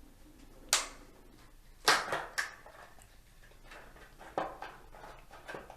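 About five short, sharp clicks and taps of small hard objects being handled, the loudest about three-quarters of a second in and just before two seconds in: a new M.2 SSD and its packaging being handled.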